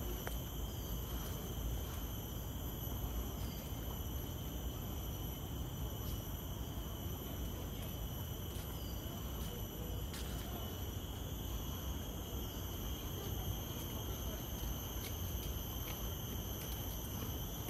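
Steady chorus of insects in tropical garden vegetation, several high-pitched tones held without a break, over a constant low rumble.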